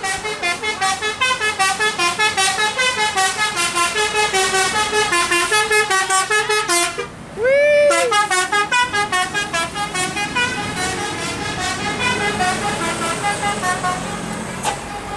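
Basuri multi-tone bus horn playing a fast melody of short stepped notes, about five a second. About seven seconds in it breaks off briefly, sounds one rising-and-falling swoop, then the tune resumes.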